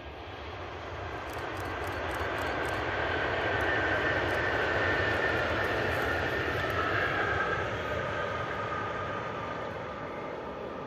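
Renfe Class 120 electric train passing at a distance: a rush of noise that swells and then slowly fades, with a high whine that drops slightly in pitch as it goes by.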